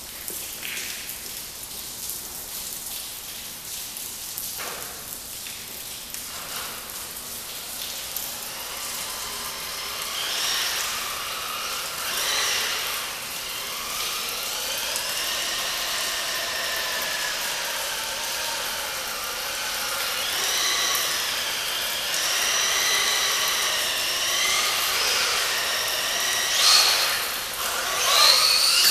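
Brushless electric motor of an RC truck running on a 2S LiPo, whining and rising and falling in pitch with the throttle. After a quieter stretch of hiss the whine comes in about a third of the way through, and it is loudest in two short surges near the end.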